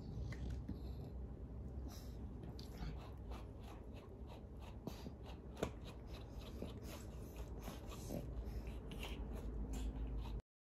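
A grooming brush raked through a Pekingese's long coat, a quick irregular run of short scratchy strokes that begins a couple of seconds in. The sound cuts off abruptly near the end.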